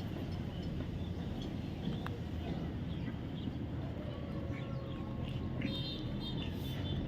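Steady low background rumble, with a faint, high, pitched call about six seconds in, typical of a bird.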